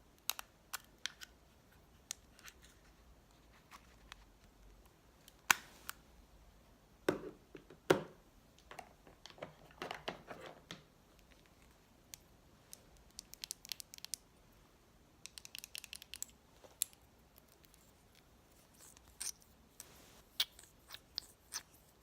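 Scattered sharp clicks and taps from makeup containers and tools being handled, with a soft rustle about ten seconds in and a quick run of clicks a little past the middle.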